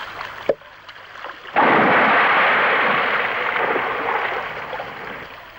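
Cartoon sound effect of water rushing and splashing, starting suddenly and slowly fading away over a few seconds.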